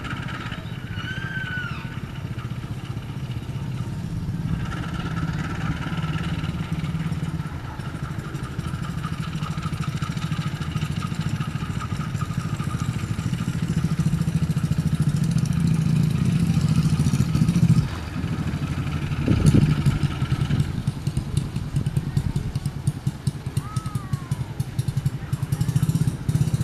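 CC201 diesel-electric locomotive running light at slow speed, its diesel engine's low steady rumble growing louder as it approaches, with a single clank about two-thirds of the way through. Short bird chirps come through near the start and near the end.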